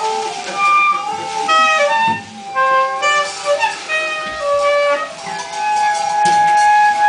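Improvised experimental music: a wind instrument plays short held notes that step up and down in pitch, with other pitched tones overlapping it.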